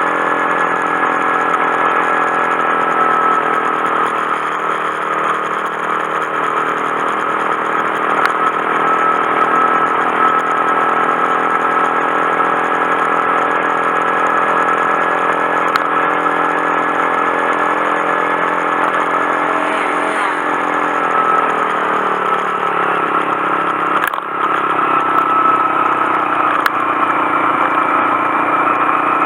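Honda Monkey 125's single-cylinder engine running while the bike is ridden at a steady pace. About two-thirds of the way through, the engine note drops as it slows, a brief sharp click follows, and then the note climbs again.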